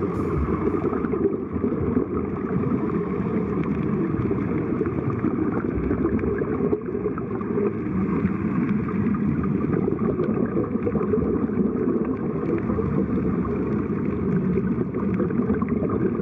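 Steady, muffled underwater rushing and bubbling, recorded underwater, from air escaping out of sea-walking diving helmets.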